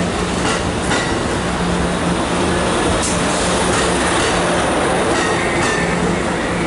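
Amtrak Pacific Surfliner bilevel passenger cars rolling past close by: a steady rumble of the cars on the track, with occasional clicks from the wheels at uneven intervals.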